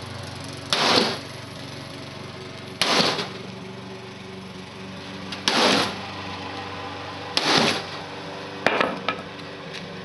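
A hammer striking the metal casing of a portable electric heater, five heavy blows about two seconds apart, each with a brief clatter after it. A steady motor hum runs underneath.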